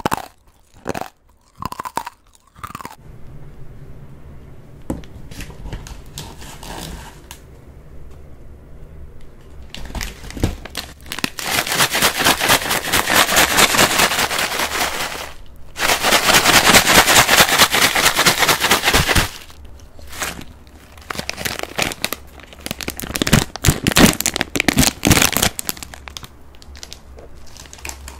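Plastic snack bag of Batdureong fried puffed corn being handled, crinkling loudly in two long stretches near the middle, with scattered sharper crackles before and after.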